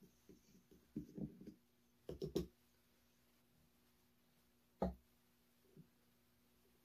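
Handheld portable capsule espresso maker being taken apart for cleaning: scattered plastic clicks and knocks, a quick run of three about two seconds in and one sharp knock near five seconds as a part is set down on the table.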